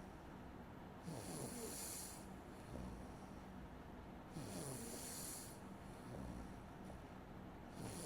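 A sleeping person snoring in slow, regular breaths, a cycle about every three and a half seconds, each with a hissing rush of air and a low, rough snore between them.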